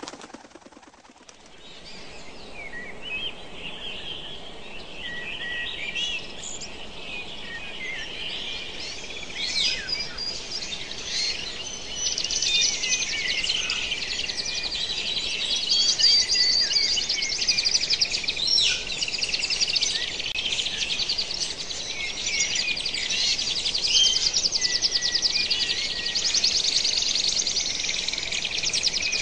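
A dense chorus of many birds chirping and trilling together, fading in over the first few seconds and then continuing steadily.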